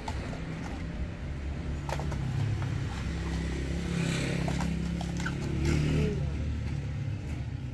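A low engine hum, louder and shifting in pitch a little past the middle, with a few light clicks and rustles of a cardboard box and plastic packaging being handled.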